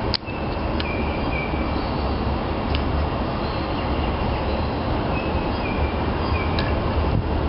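Steady rushing background noise with a low rumble, crossed by a few short, high chirps and faint clicks.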